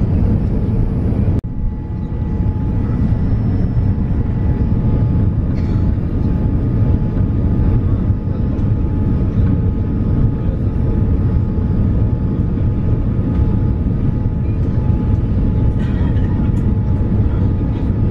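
Airliner cabin noise: a steady low rumble of engines and airflow, with faint steady whine tones above it. The sound drops out for an instant about a second and a half in.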